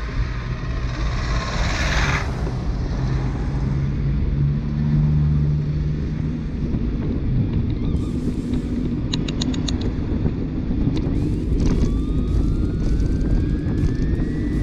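Road traffic with a heavy low rumble, a vehicle engine humming steadily for a couple of seconds near the middle, and a whine rising in pitch over the last few seconds.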